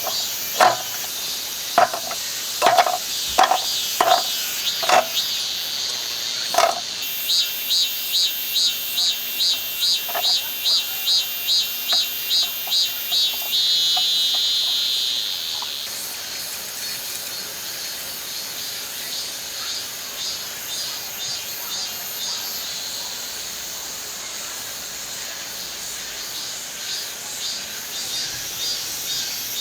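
Crickets and other insects chirping in a steady high-pitched chorus. From about seven seconds in, one insect chirps rhythmically, two to three times a second, for several seconds. Over the first seven seconds a few louder, sharp calls stand out.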